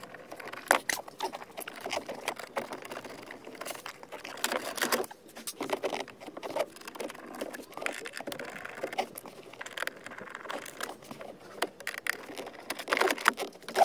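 Plastic steering-column trim of a car being unscrewed and pulled off by hand: irregular clicks, knocks and rustling scrapes of plastic panels.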